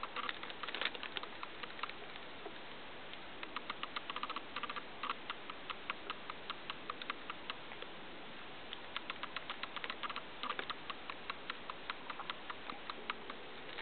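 Hamster sniffing hard through its nose while its claws tick on the plastic of an electronic keyboard, in quick runs of small clicks with short pauses.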